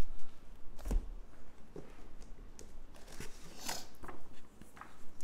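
Comic books being lifted out of a cardboard shipping box and set down on a table: rustling paper and cardboard, with a few soft thumps, the loudest about a second in.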